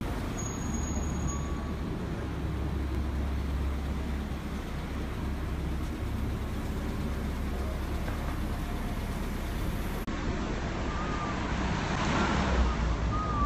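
Street traffic: a steady low rumble of road vehicles. Near the end a car, a red taxi, passes close and swells louder.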